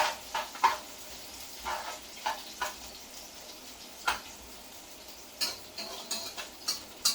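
Onion and ginger sizzling in hot oil in a pot, with a spoon scraping and clinking against the pot at irregular moments as the mixture is stirred.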